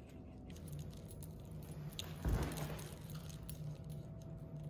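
Faint handling and movement noises: a soft thud about two seconds in and a few light clicks, over a low steady hum.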